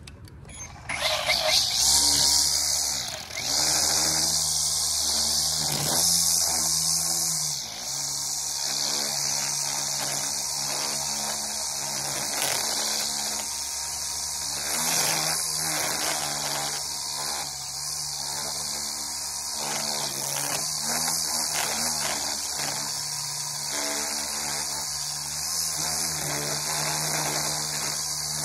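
String trimmer starting up about a second in, then running steadily with its line cutting grass along the lawn edge.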